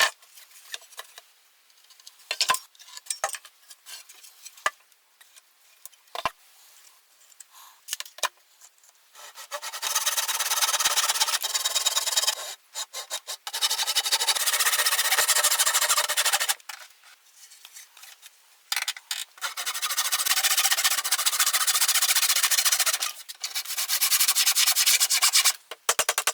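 Hand tools working wood to cut a groove: scattered light taps and scrapes at first, then from about nine seconds in, four long stretches of continuous rasping as the tool cuts into the wood.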